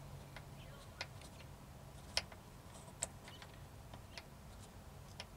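Faint light clicks and taps, about five spread over a few seconds, from a pencil marking a jail bar's mounting hole through masking tape on the bus's window frame, over a faint low hum.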